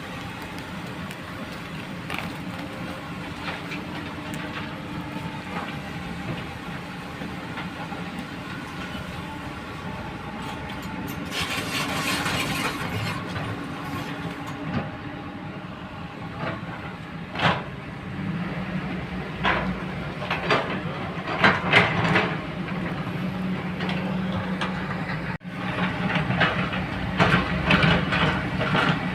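Hydraulic excavator's diesel engine running steadily, with repeated clanks and scraping noise that come and go, heaviest near the middle and in the last few seconds.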